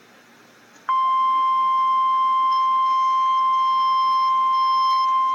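Emergency Alert System attention signal: the National Weather Service's single steady 1050 Hz warning alarm tone. It starts abruptly about a second in and holds unbroken and loud, announcing a severe thunderstorm warning.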